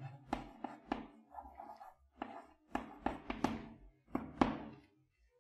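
Chalk writing on a blackboard: a run of short taps and scratches in three spurts as letters are written.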